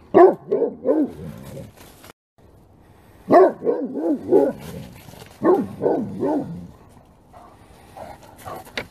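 Great Pyrenees barking in three runs of four or five quick barks each: one at the start, one about three seconds in, and one about five and a half seconds in.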